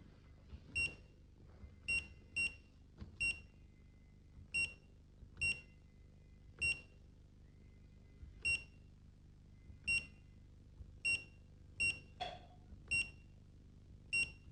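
Danfoss TPOne digital room thermostat giving short, high key beeps as its buttons are pressed during the startup setup routine: over a dozen single beeps at irregular intervals.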